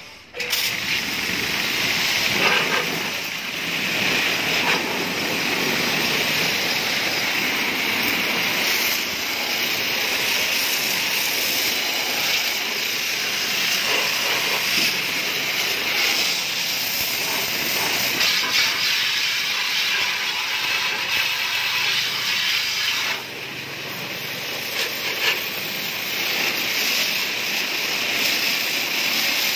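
A steady hissing jet of water from a hose nozzle spraying against a motorcycle's spoked front wheel and hub, rinsing it off. The spray grows a little quieter for the last few seconds.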